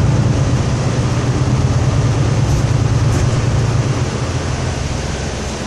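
Mercedes-Benz Conecto II city bus's engine running under way, heard from inside the passenger cabin as a steady low drone that eases off over the last second or two.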